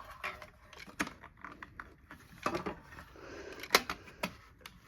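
Scattered clicks and knocks of a Cerberus Pyrotronics MSI-10B fire alarm pull station being handled while its handle is worked at, with the sharpest click a little before the end.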